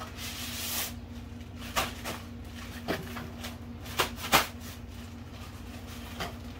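Handling of a small cardboard box and its plastic wrapping: a rustle in the first second, then a few sharp knocks and clicks, the loudest two close together a little past the middle, over a steady low hum.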